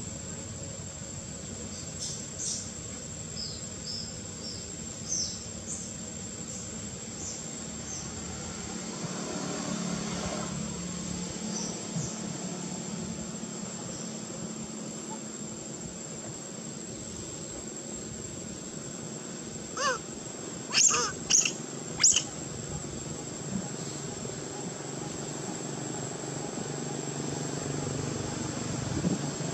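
Outdoor ambience: a steady high insect drone with faint bird chirps in the first few seconds, and four short, sharp high calls about twenty seconds in, the loudest sounds.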